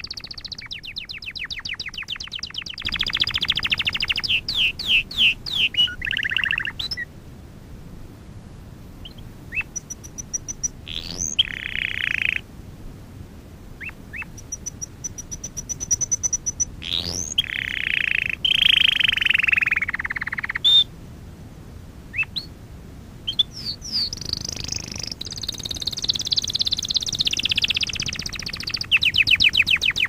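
Domestic canary singing: phrases of rapid trills and rolls with sweeping notes, broken by short pauses between phrases.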